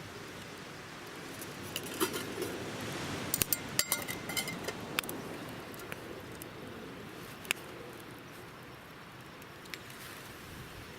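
Camp cookware and utensils clinking and tapping in a quick cluster about two to five seconds in, one clink ringing briefly, then a few single ticks, over a steady background rush.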